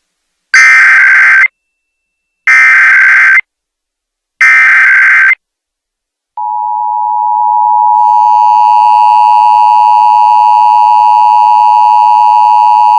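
Emergency Alert System test broadcast. First come the three SAME header bursts, each about a second of rapid two-pitch digital data warble, about two seconds apart. About six seconds in the EAS attention signal starts: a loud, steady tone near 1 kHz that fills out over a couple of seconds and then holds.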